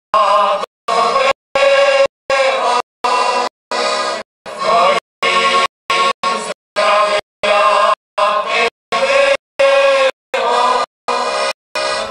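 A large group of folk performers singing together in chorus. The sound keeps cutting out in short gaps about every half second.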